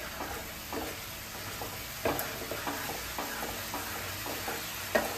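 Spatula stirring and scraping a spice paste (masala) frying in oil in a small non-stick kadai, over a steady sizzle, with repeated strokes about two a second; two strokes, about two seconds in and near the end, are louder. The masala is being fried down (kosha).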